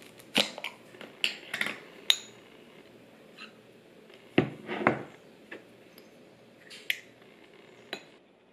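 A butter knife clinking and scraping against a small glass jar of blueberry jam as jam is scooped out. It gives a string of separate sharp clinks and knocks at irregular intervals, the loudest two close together near the middle.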